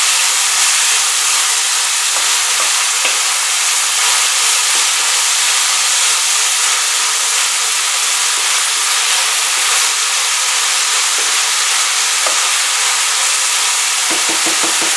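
Diced vegetables frying in hot oil in a stainless steel pan on high heat, with a steady sizzle and hiss as their water spits in the oil. A wooden spoon stirs and scrapes them across the pan.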